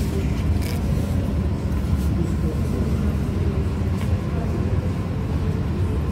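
Indistinct murmur of people's voices over a steady low rumble.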